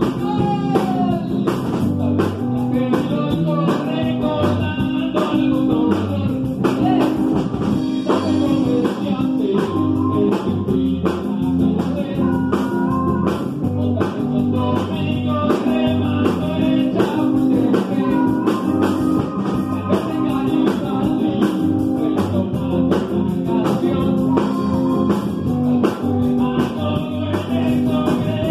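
Live blues-rock band playing: drum kit, electric bass and electric guitar, with a lead voice over the top.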